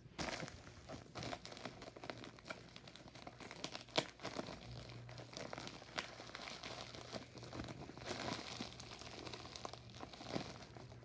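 A plastic USPS mailer bag crinkling and crackling as it is handled, with one sharper click about four seconds in.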